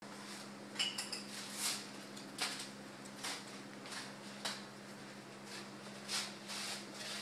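A thin plastic food bag crinkling in irregular short rustles as a cat moves its head about inside it, over a steady low hum.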